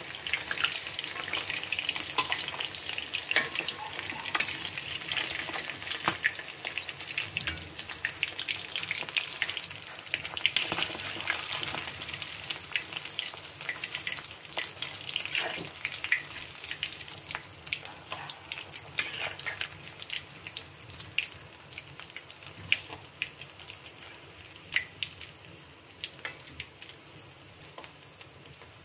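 Fish pieces frying in hot oil in a kadhai: a steady sizzle with many small crackles and spits, easing off somewhat in the last few seconds.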